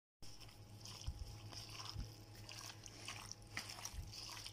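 Chicken pieces being mixed into a yogurt and spice marinade in a bowl: faint, irregular wet squelching with light clicks.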